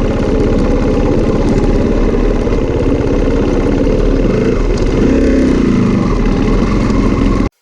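Off-road motorcycle engine running steadily; the sound cuts off suddenly near the end.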